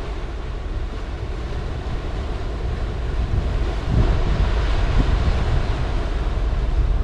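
Wind buffeting the microphone over the low rumble of the cargo ship Wilson Newport passing along the canal. The sound grows louder and steps up about four seconds in.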